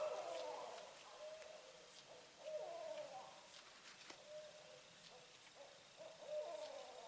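An owl calling in the woods: three bouts of faint, wavering calls that slide down in pitch, a few seconds apart, with shorter steady notes in between.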